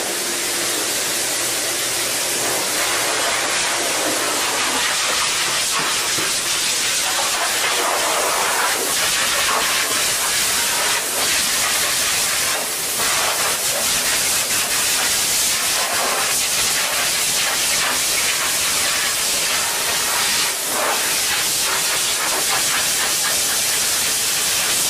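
High-velocity dog dryer blowing air through its hose onto a wet dog's coat, blasting the water out: a loud, steady hiss of rushing air.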